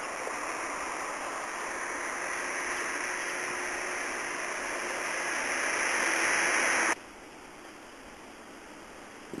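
Steady hiss-like rushing noise that grows louder and brighter, then drops suddenly about seven seconds in to a fainter hiss.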